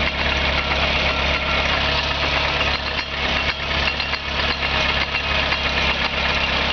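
Vehicle running steadily with repeated knocking from a worn-out driveshaft cross (universal joint) that has failed.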